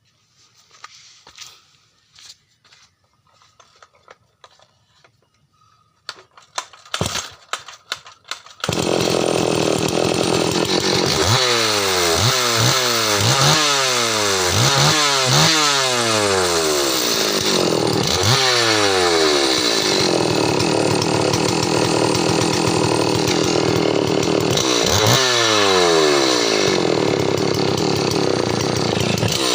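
Stihl MS 381 two-stroke chainsaw: after a few seconds of faint clicks and knocks from handling, the engine starts about nine seconds in and runs loud. It is revved again and again, the pitch falling back after each burst, while the carburettor is being set.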